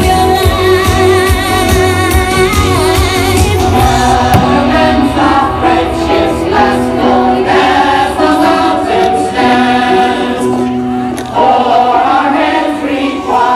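Loud music with choir-like singing on long held notes.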